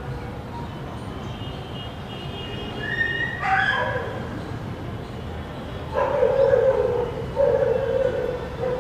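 Animal cries: one high call about three and a half seconds in that falls in pitch, then two longer, lower calls about six and seven and a half seconds in.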